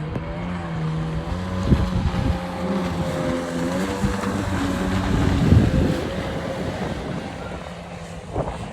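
An engine running steadily with its pitch shifting up and down, fading near the end, with wind on the microphone.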